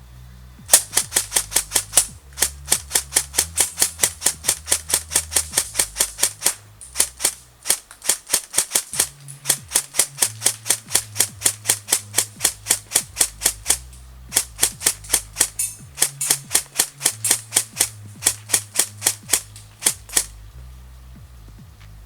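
Airsoft electric AKM (an E&L AKM built up as a Zastava M70, with an ASTER electronic trigger board) firing full-auto in several long bursts of about eight shots a second, with short pauses between bursts. Music plays underneath.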